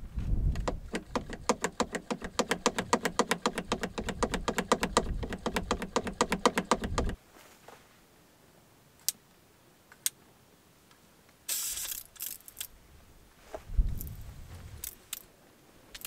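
Rapid, even metallic ratcheting clicks, about eight a second, as a mechanism on the Jeep's roof rack is worked by hand. The clicking stops suddenly about seven seconds in. A few scattered clicks and short rustles of handling follow.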